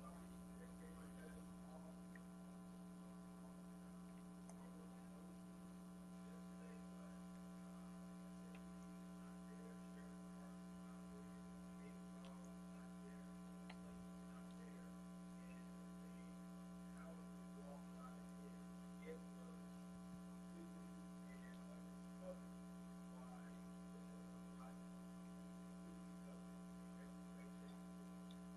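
Near silence: a steady low electrical hum, with faint small room noises scattered through it and a couple of faint ticks in the second half.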